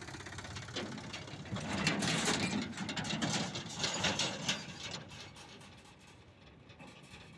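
Farm tractor towing an empty steel trailer drives past close over rough dirt, its engine running under a dense rattle and clatter from the trailer. It is loudest about two to four seconds in, then fades as it pulls away.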